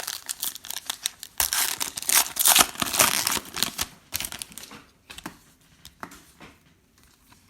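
Crinkling and tearing of a foil card-pack wrapper as a pack of 2019 Prizm football cards is ripped open and handled. It is loudest about two to three seconds in, then fades to a few light clicks and rustles.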